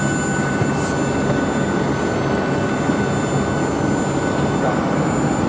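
Steady turbine rumble and hiss from a parked Boeing 737-800 jet airliner, with a constant high whine on top.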